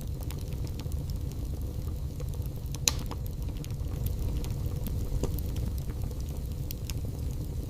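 Wood fire burning in a fireplace: a steady low rumble with scattered small crackles and pops, and one sharper pop about three seconds in.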